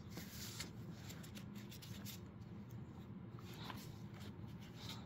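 Faint scratchy rustling and small scrapes of a dog tugging on a rope toy, over a low steady hum.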